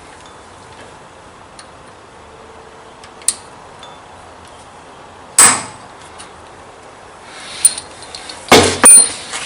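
Hammer striking a center punch on the steel lathe carriage to mark a hole: one sharp metallic strike with a short ring about halfway through, and a cluster of loud strikes near the end.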